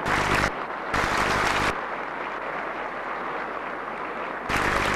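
Crowd applauding, swelling louder at the start, about a second in and near the end, over a steady low hum.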